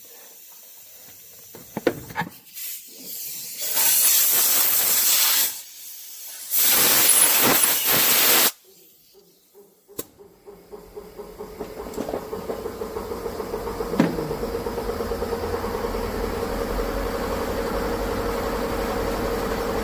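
Two long hissing blasts of pressurized spray, about two seconds each, followed by a steady mechanical hum with a quick rhythmic pulsing that grows louder over the last several seconds.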